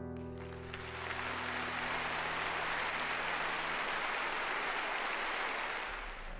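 The last strummed acoustic guitar chord of a live song rings out as audience applause sets in about half a second in. The applause holds steady, then fades away near the end.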